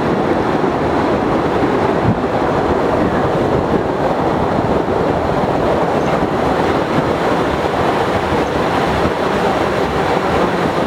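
Postojna Cave tourist train running along its track: a steady rumble and rattle of wheels and carriages on the rails.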